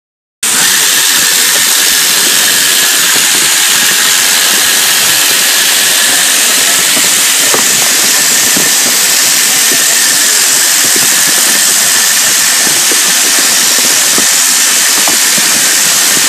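A motor-driven sheep-shearing handpiece runs steadily and loudly as it cuts through a sheep's fleece.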